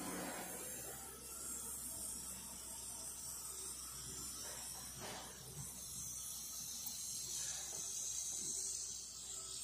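Faint outdoor background: a steady high-pitched hiss, with a few soft scuffs of footsteps on grass about halfway through.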